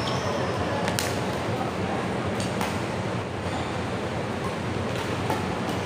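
Badminton rally: several sharp racket-on-shuttlecock hits one to two and a half seconds apart, over a steady rumble of the covered hall.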